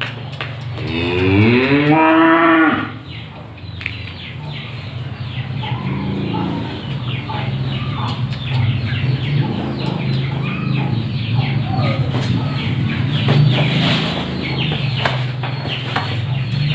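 A cow moos once, a long call about a second in that rises in pitch and is the loudest sound. After it, a steady low hum runs on under many short, high chirps and clicks.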